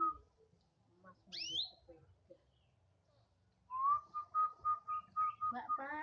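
Short rising chirp from a caged canary about a second and a half in, then a whistled note repeated about four times a second from about four seconds on, ending in a voice call that falls in pitch.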